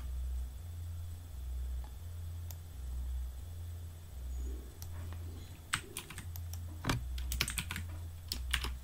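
Typing on a computer keyboard: a scattering of sharp keystroke clicks, mostly in the second half, over a low steady hum.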